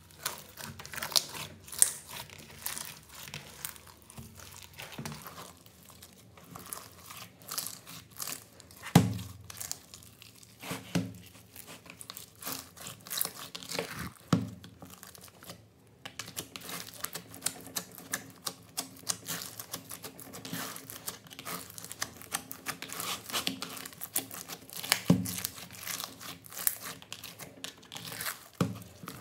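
Hands kneading and squeezing a large batch of sticky slime full of foam beads: dense wet crackling and popping, with a few louder squelches.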